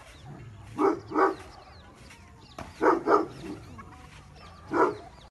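A dog barking: five short barks, two quick pairs and then a single one near the end.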